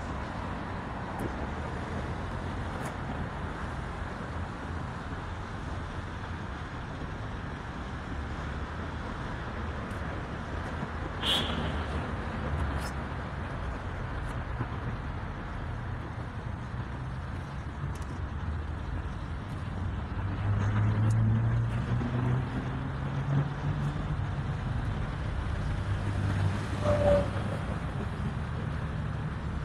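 Steady road traffic noise from passing cars. In the second half one vehicle's engine grows louder and its pitch rises and falls as it goes by, and a sharp click is heard about a third of the way in.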